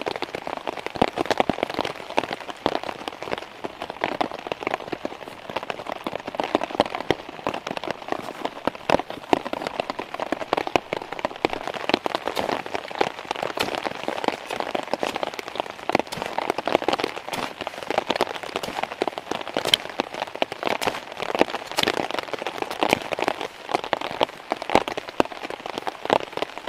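Heavy rain falling on a tarp shelter overhead: a dense, uneven patter of drops that never lets up.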